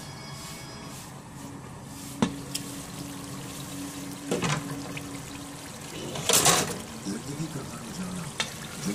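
Gourd and brinjal curry bubbling in a pot on a gas stove. The glass lid is lifted off with a few sharp knocks, a loud short noise comes about six seconds in, and metal tongs start stirring the pieces near the end.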